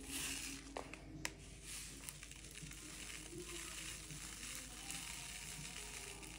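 Plastic salt pouch crinkling as it is handled and tipped to measure salt into a spoon, with a few light clicks about a second in.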